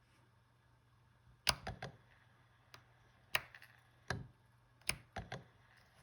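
Fujifilm X-H1's in-body image stabilisation unit clunking and clicking: a few sharp knocks, some in quick groups of two or three, as the camera is switched on and the playback button is pressed. The uploader finds this noise louder than on other camera models.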